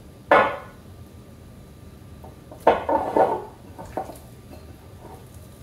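Kitchen bowl and its lid clattering as they are handled: a sharp clack about a quarter second in, then two knocks close together near three seconds and a small click a second later.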